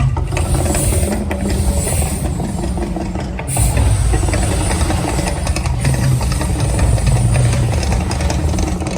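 Mirage Volcano eruption show: a loud, deep rumble with hissing on top, surging suddenly about three and a half seconds in.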